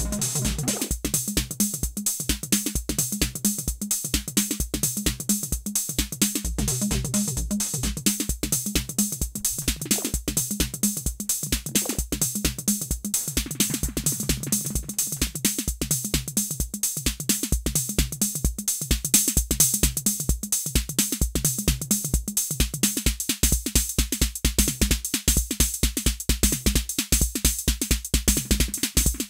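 Roland TR-06 Drumatix drum machine playing a steady, fast electronic beat: deep low hits with sharp high ticks over them, the pattern's texture shifting a few times.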